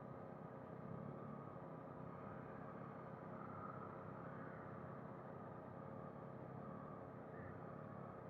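Motorcycle engine running at low, steady revs while the bike rolls slowly in a queue of motorcycles.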